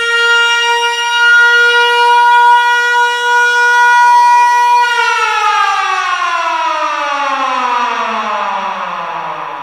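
Air-raid siren wailing on one steady note, then winding down from about five seconds in, its pitch sliding steadily lower as it fades.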